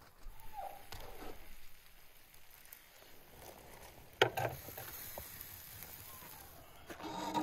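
Metal kebab skewers scraping and clinking as grilled meat is pushed off them onto flatbread, with one sharp clack about four seconds in.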